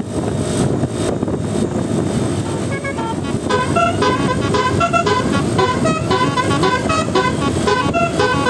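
Multi-tone telolet bus horn, its trumpets playing a quick tune of short stepping notes that starts about three seconds in, over a steady low rumble.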